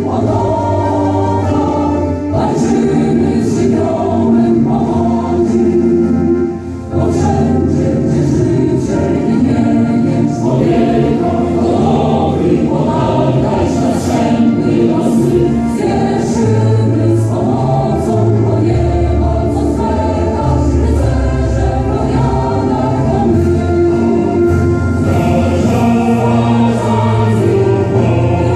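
Choral music: a choir singing, continuous, with a short dip about seven seconds in.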